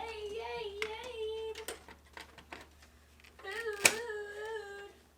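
A cat meowing: two long, drawn-out, wavering meows, the second starting about three and a half seconds in, with scattered light clicks and one sharp click about four seconds in.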